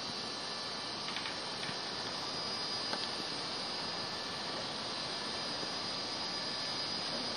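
Steady background hiss with a faint high tone running through it, and a few faint clicks.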